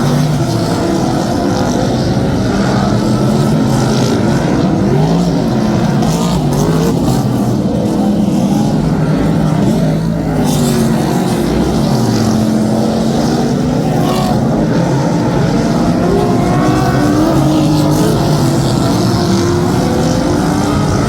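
A pack of superstock speedway race cars running together, several engines rising and falling in pitch as they rev on and off around the track.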